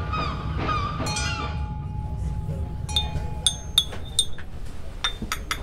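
A teaspoon stirring in a china teacup, a quick string of light, ringing clinks of metal on porcelain in the second half. Music fades out in the first second or two.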